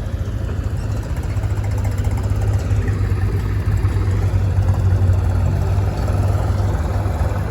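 Heavy diesel engine running steadily, with a strong, even low hum.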